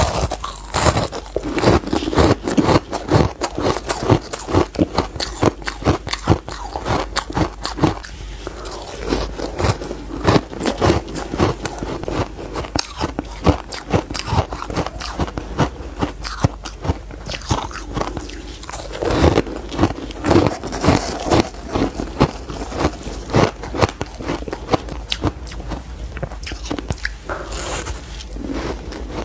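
A person biting and chewing chunks of powdery frozen ice: many crisp crunches in quick succession.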